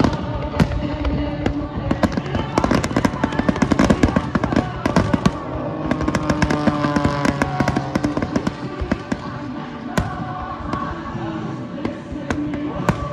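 Fireworks going off in quick succession, sharp bangs and crackles, over music.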